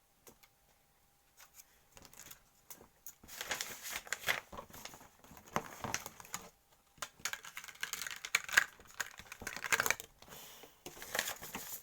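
Plastic packaging crinkling and rustling as it is handled, in bursts of crackling that start about three seconds in after a quiet opening.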